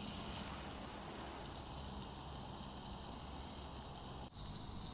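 Chicken and peppers sizzling steadily in a covered stainless steel frying pan over a wood fire, with a brief break about four seconds in.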